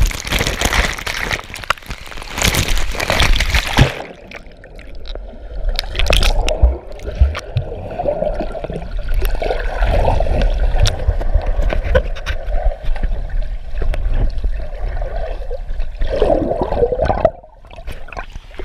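Water rushing and splashing hard over an action camera as it shoots off the end of a water slide. About four seconds in the camera goes under the pool's surface and the sound turns to a dull, muffled underwater gurgling and rumbling, which drops away sharply near the end.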